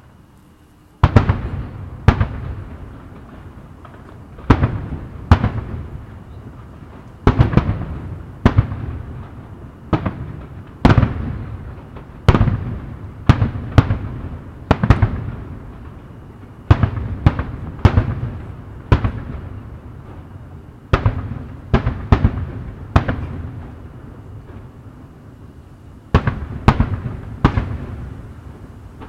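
Fireworks display: aerial shells bursting in an irregular barrage of about two dozen loud bangs, some in quick pairs or triples, each followed by a rolling low echo. The barrage starts about a second in, with a short lull near the end.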